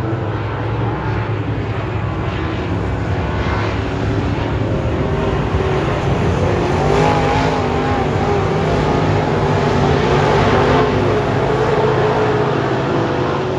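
Dirt late model race cars' V8 engines running hard around a dirt oval, a loud steady drone. About halfway through, one engine's pitch wavers up and down and grows louder as a car comes past.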